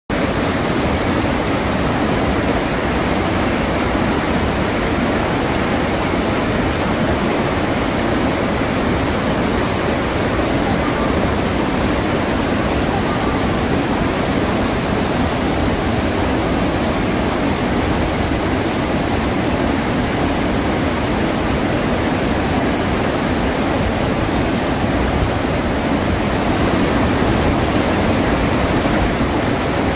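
Iguazu Falls, a huge waterfall, pouring into its gorge with a loud, steady rush of water that never changes.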